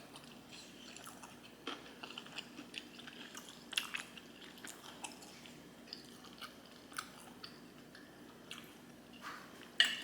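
A person chewing homemade rice-paper sushi rolls close to the microphone, with faint, wet mouth clicks and smacks at irregular moments that grow a little louder near the end.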